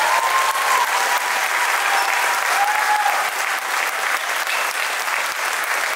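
A crowd applauding: many hands clapping steadily, with a few voices calling out over it.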